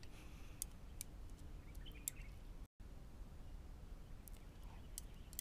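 Faint, scattered clicks from eating with wooden chopsticks, over quiet room tone. About halfway through the sound drops out completely for an instant.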